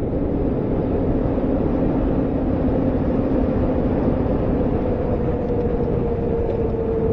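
Honda Monkey's 125cc air-cooled single-cylinder engine running at a steady cruise, with wind rushing over the microphone. The engine note eases down slightly near the end.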